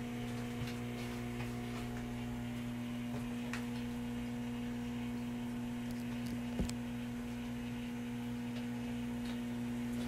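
Microwave oven running mid-cook: a steady electrical hum, with one light tap about two-thirds of the way through.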